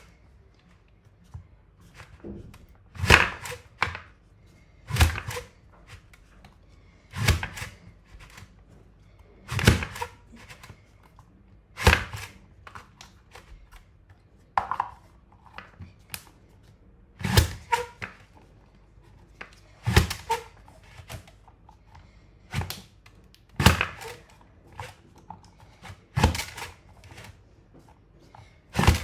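Safe Slice mandoline slicer pushed down again and again through sweet potato, a thunk of the plunger bottoming out with each cut, about one every two to three seconds, some twelve in all.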